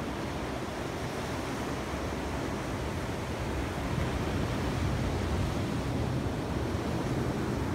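Ocean surf breaking and washing onto a sandy beach, a steady rush that swells a little about four seconds in.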